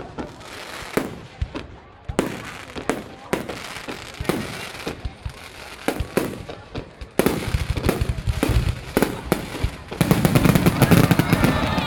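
Fireworks going off: scattered sharp bangs and pops at irregular intervals, thickening into a dense crackling barrage about seven seconds in that is loudest near the end.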